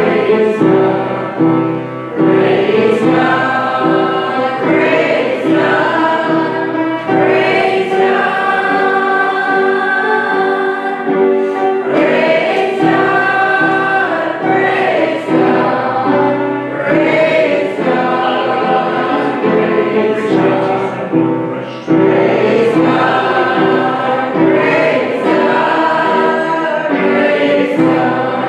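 Congregation singing a gospel hymn together, many voices on long held notes.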